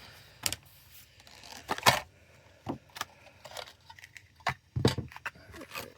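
Hands handling a diecast car's packaging: scattered light clicks and rattles, the loudest about two seconds in, with a cluster near the five-second mark.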